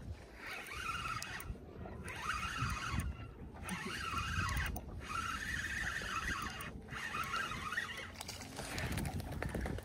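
Spinning reel being cranked to retrieve line, a whirring whose pitch wavers with the cranking speed, broken by four short pauses. Low wind rumble on the microphone underneath.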